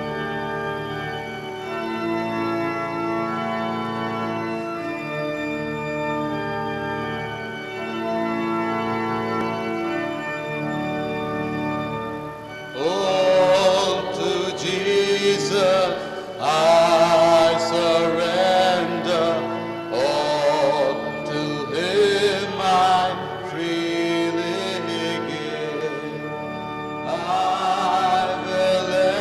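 Background music: a sustained drone of held chords, and about 13 seconds in a solo voice begins singing a slow, melismatic chant over it.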